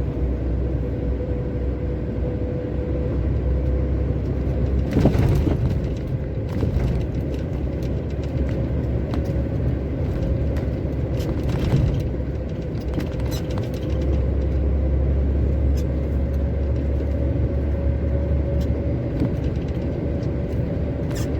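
Heavy truck's engine droning in the cab as the rig crawls slowly along, with a steady faint whine above the drone. Two short jolts stand out, about five and twelve seconds in.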